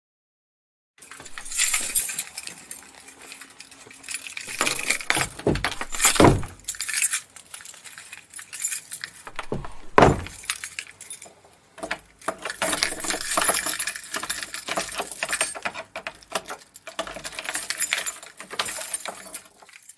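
Keys jangling and rattling as a door is locked: a busy run of small metallic clinks with louder clacks about six and ten seconds in, starting about a second in and cutting off abruptly near the end.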